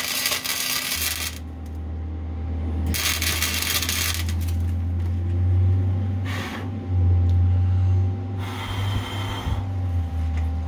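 Welding arc crackling in bursts of about a second, four in all with a shorter one in the middle, as subframe connectors are welded to a car's floor pan. A steady low hum sets in about a second in and lasts to the end.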